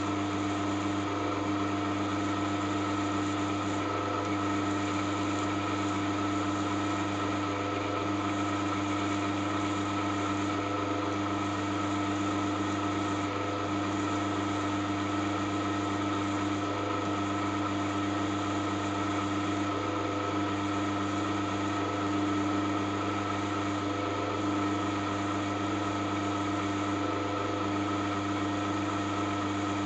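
Drilling machine running steadily at about 500 rpm while a 1.5 mm bit bores through the head of a steel socket-head cap screw: an even hum with several steady tones that does not change.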